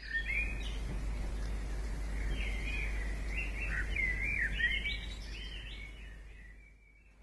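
Birds singing: a string of short whistled notes sweeping up and down, over a steady low rumble, fading out near the end.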